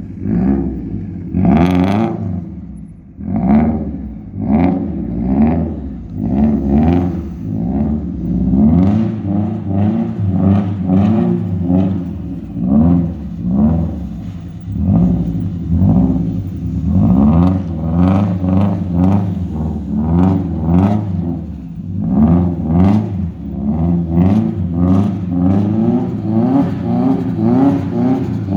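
Subaru Impreza's flat-four boxer engine with a loud exhaust, revved hard over and over, about once a second, each rev a quick rise in pitch before dropping back.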